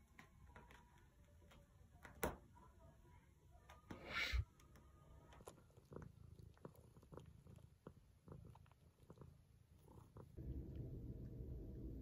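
Domestic cat sounds, quiet overall: soft clicks and rustles, a thump about two seconds in and a short rush of noise around four seconds. Then a tabby cat purring softly while it kneads with its paws, and near the end a louder steady low rumble begins.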